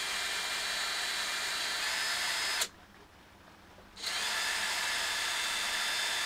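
Cordless drill running steadily as it drills out the stripped muffler bolt threads in a Husqvarna 365 chainsaw. It stops about two and a half seconds in and starts again about a second and a half later.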